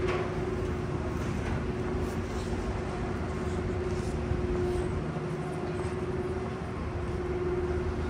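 Steady city rumble of passing vehicles and rail traffic, with a constant low hum throughout.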